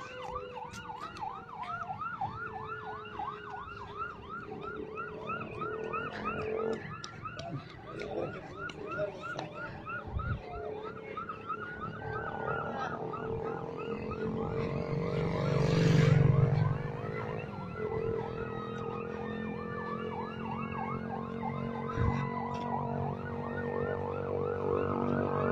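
Several emergency-vehicle sirens sounding at once, one on a fast yelp of about four rising-and-falling sweeps a second, others on slower gliding wails. A louder rush of noise swells and fades about sixteen seconds in.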